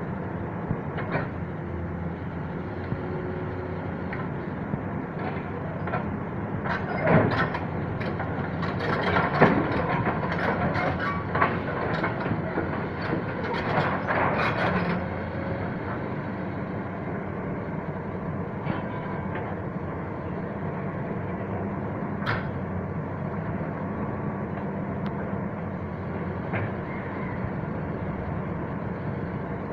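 Komatsu excavator running steadily, with a spell of loud metallic clanking and rattling from about six to fifteen seconds in and a few single clanks later.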